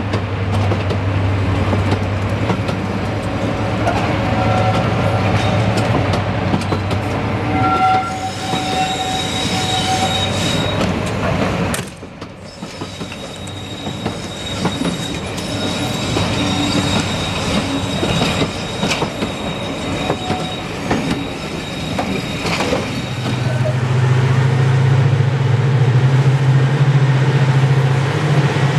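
Railway coaches rolling past close by, wheels clicking over rail joints and squealing in a thin high tone, over a steady low diesel drone. A little over twenty seconds in, a louder, deeper drone takes over: Class 55 Deltic 9016's twin Napier Deltic two-stroke engines as the locomotive approaches.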